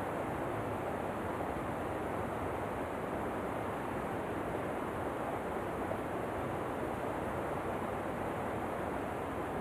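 Waterfall rushing in a steady, even roar of falling water that does not change.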